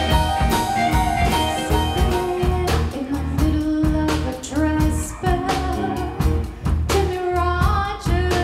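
A live rock band playing a song: sung vocals over electric guitars, keyboard and a drum kit keeping a steady beat.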